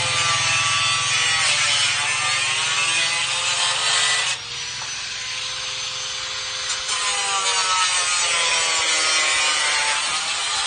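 Power saw cutting wood, its pitch sagging and recovering under load. About four seconds in it comes out of the cut and runs free more quietly, then cuts again about seven seconds in.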